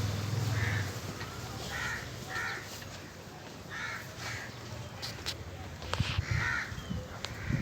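Crow cawing, about five short harsh caws at uneven intervals, with a low hum at the start and a few sharp clicks in the second half.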